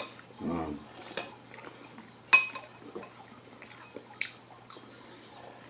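Cutlery tapping and clinking on dishes at the table, with one sharp, ringing clink about two and a half seconds in, the loudest sound. A faint low hum runs underneath.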